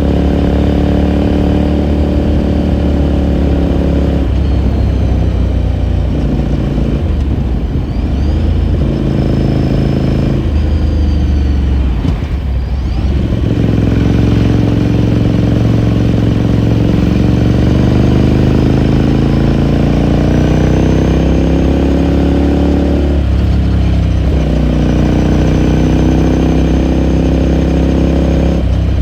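Ducati Scrambler Sixty2's 399 cc air-cooled L-twin heard onboard while riding. The engine note shifts pitch several times as the rider changes gear and throttle. It breaks off briefly about twelve seconds in, then pulls with a slowly rising pitch for about ten seconds before changing again.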